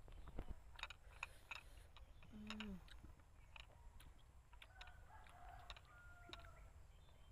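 Faint, irregular wet clicks as a slice of green banana is dipped and rubbed in a glass bowl of thick chilli sauce, with a brief low call about two and a half seconds in.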